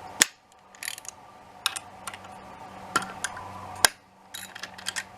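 A ratchet wrench and metal tools working the mounting bolts of a motorbike skid plate. They give a run of irregular sharp clicks and metallic clinks, with a quick cluster near the end.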